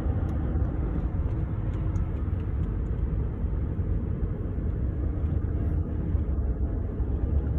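Steady low rumble of road and engine noise inside a moving truck's cabin.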